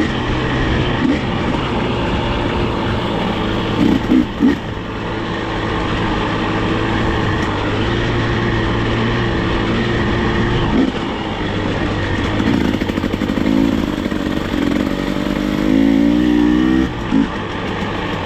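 Off-road vehicle's engine running steadily while riding a trail, with its pitch rising as it speeds up near the end and then dropping back.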